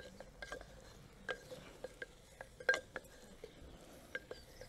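A wooden spoon stirring stew in a wheel-thrown ceramic cooking jar (BB2 black burnished ware), knocking irregularly against the pot's walls. Each knock is a faint clink that rings briefly.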